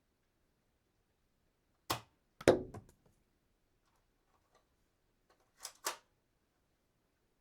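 Toy dart gun: a click, then the shot a half second later, the loudest sound, with a short rattle after it. About three seconds later come two sharp clicks close together as the gun is cocked again.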